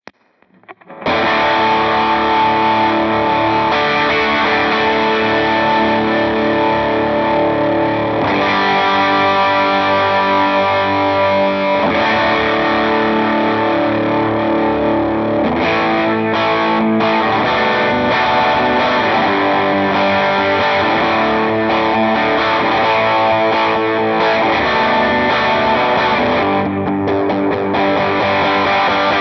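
Les Paul electric guitar with humbuckers, played with a slide through a Line 6 HX Stomp preset: a compressed, overdriven tone with effects, in long sustained notes. It starts about a second in and stops at the very end.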